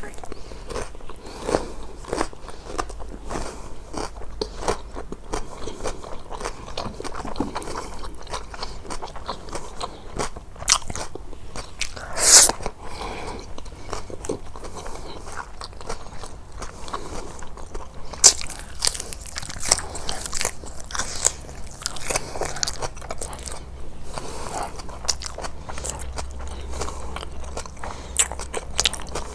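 Close-miked eating sounds: steady irregular biting and chewing with wet mouth clicks, and one louder crunch about twelve seconds in.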